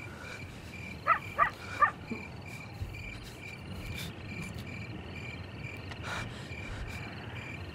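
Crickets chirping steadily at night, a regular high trill pulsing about three times a second. About a second in come three short, louder squeaks.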